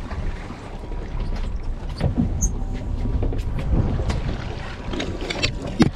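Steady low rumble of a fishing boat on the water, with scattered sharp clicks and knocks from gear being handled on board.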